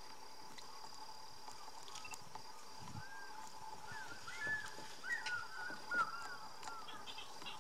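A steady high-pitched insect drone, with a run of short chirping calls from small animals starting about three seconds in, the loudest shortly before the end.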